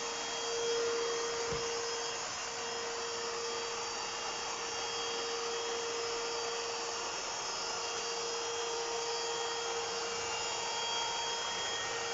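Vacuum cleaner running steadily: a constant motor whine over an even rushing hiss.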